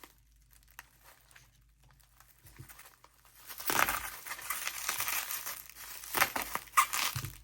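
Packaging crinkling and tearing as it is handled and opened, starting about halfway in after a few faint clicks, with sharp crackles near the end.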